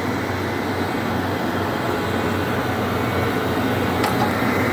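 Heald 261 rotary surface grinder running with a steady, even machine hum, working its down-feed cycle with no grinding wheel fitted. A faint click about four seconds in.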